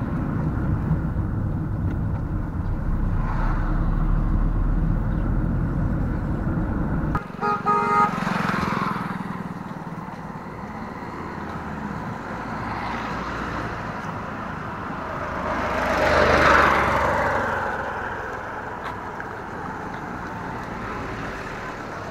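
Steady low rumble of a car driving uphill on a winding road, cutting off abruptly about seven seconds in. A few short car-horn toots follow. Later a vehicle passes close by, its noise swelling and fading.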